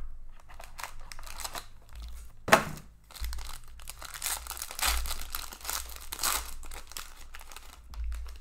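Foil trading-card pack being handled and torn open: crinkling and tearing of the foil wrapper, with one sharp knock about two and a half seconds in.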